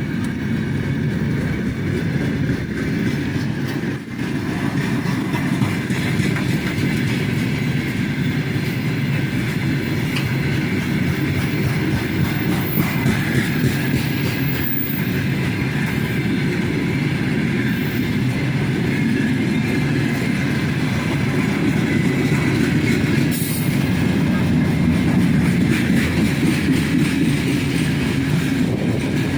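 Long freight train of about 80 cars rolling past: a steady rumble of steel wheels on the rails with light clicking from the wheels over the rails.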